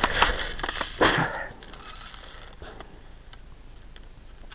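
Close rustling and crackling, dense and loud for about the first second and a half, then dropping to a low steady background with a few faint clicks.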